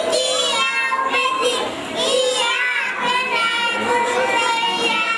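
Two young children singing together in unison into a microphone, a slow melodic line with smooth gliding pitch and short breaths between phrases.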